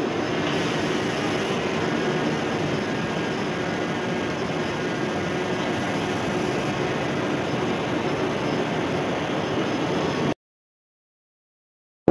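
Small quadcopter drone flying, its propellers giving a steady hum over a rushing noise. The sound cuts off abruptly about ten seconds in.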